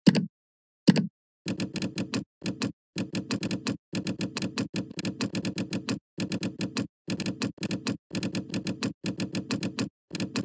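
Computer keyboard typing: runs of quick key clicks separated by short pauses, with two heavier single keystrokes near the start.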